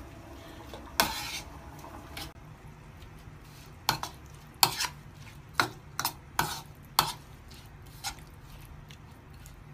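Metal spoon stirring a wet, saucy mix in a ceramic bowl, clinking and scraping against the bowl in irregular sharp knocks, most of them bunched in the middle seconds.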